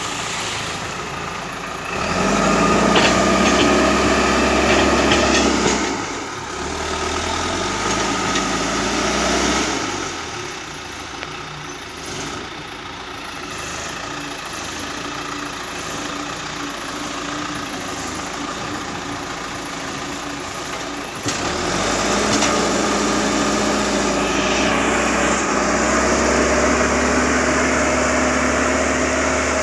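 John Deere 310E backhoe loader's diesel engine running as the machine works the road, revving up under load from about two seconds to six seconds in and again from about twenty-one seconds on, and easing back nearer idle in between.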